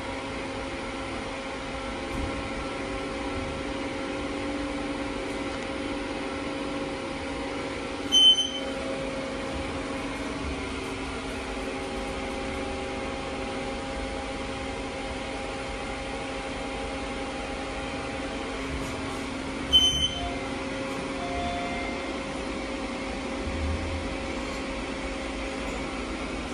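Steady hum of an elevator cab and its machinery while riding, with several level tones, broken twice by a short high electronic beep, about 8 seconds in and again about 20 seconds in.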